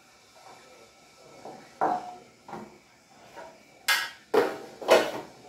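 Potato chunks tipped from a glass bowl into an air fryer basket, then a utensil clattering and knocking against the basket as they are stirred, with three loud sharp knocks near the end.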